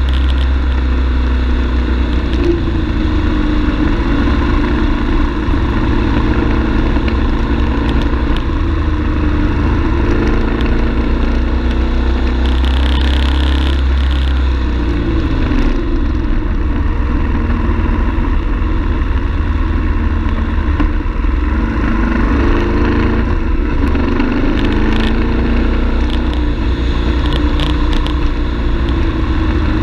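BMW F 850 GS parallel-twin engine running through winding bends, its revs rising and falling, with wind rumbling on the bike-mounted camera's microphone.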